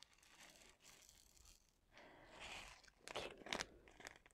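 Faint crinkling of the diamond-painting canvas's clear plastic cover film and small plastic resin drills rattling in a plastic tray as they are poured and shaken, with a cluster of sharper crackles about three seconds in.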